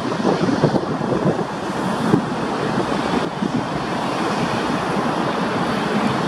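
Airbus A320's jet engines at takeoff thrust as it lifts off and climbs away: a steady, rough rumble with hiss.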